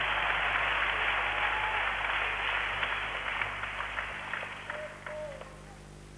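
Arena crowd applauding. The applause thins into scattered single claps and dies away over the last couple of seconds.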